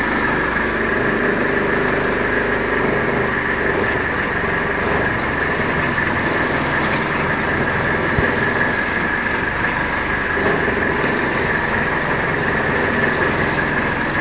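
Fishing boat's engine running steadily, with a steady high whine over the low running noise.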